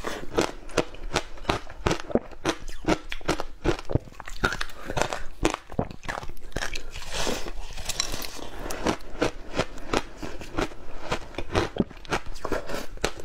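Biting and chewing packed shaved ice coated in passion fruit pulp: dense, rapid, irregular crunching, with a brief lull about five and a half seconds in.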